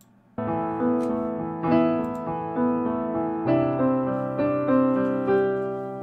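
Piano music beginning about half a second in: notes and chords struck one after another, each ringing on and fading, with the last chord left to die away near the end.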